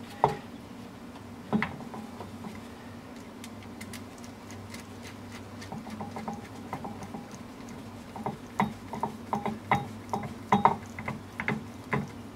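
Light metal clicks and knocks of hand work on an air cylinder's end cap: a screwdriver and air hose fittings against the metal. Two sharp clicks about a second apart at the start, then a quick scattered run of clicks in the last four seconds, over a steady low hum.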